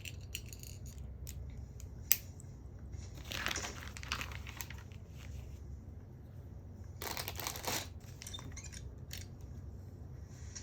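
Small plastic pieces being handled: scattered clicks, one sharp click about two seconds in, and two longer stretches of rustling and clattering, typical of LEGO bricks being sorted through.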